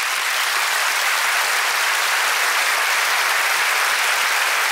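Theatre audience applauding steadily at the end of a stand-up comedy routine.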